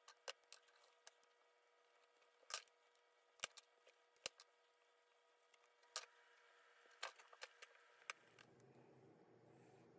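Scattered sharp clicks and clinks, about a dozen at uneven spacing, as the small parts of an antique doctor's bag's rusty metal frame and handle hardware are worked loose by hand and knock against each other and the table. A low steady rumble comes in near the end.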